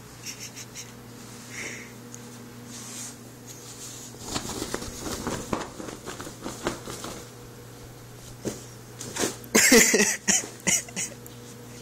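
A cat scrambling on a collapsible fabric tent on carpet: irregular rustling and scraping of the fabric and its springy frame, loudest in a rough burst near the end. A faint steady hum runs underneath.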